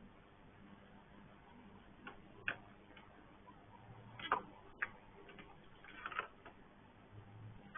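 Faint, irregular clicks and taps, about six over several seconds, over a faint steady hum.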